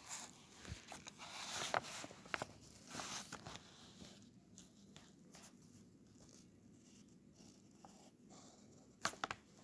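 Mechanical pencil scratching faintly across paper in short strokes as letters are written, followed by a quieter stretch and a few sharp clicks near the end.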